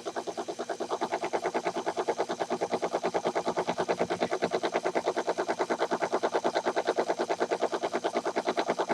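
Motor-driven leadscrew power feed running and moving the lathe carriage, making a steady, rapid clicking of about seven or eight clicks a second.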